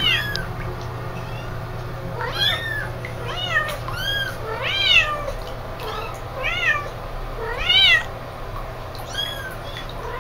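Young kittens meowing repeatedly: high, thin cries that rise and fall in pitch, coming about once a second, some overlapping.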